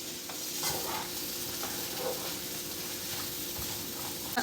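Vegetables and garlic frying in oil in a pan, a steady sizzle, with a few light clicks as they are stirred.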